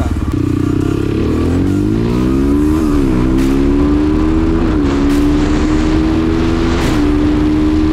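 Sharmax Expert Pro enduro motorcycle's single-cylinder 177FMM four-stroke engine at full throttle, accelerating hard downhill. It revs up in a steep climb, then pulls on at high revs with three brief dips in pitch as it shifts up through the top gears. Wind rushes over the microphone throughout.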